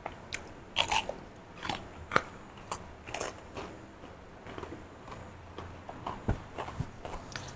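Close-miked crunching and chewing of raw round green eggplant: crisp bites and chews about every half second, loudest about a second and three seconds in, then softer chewing.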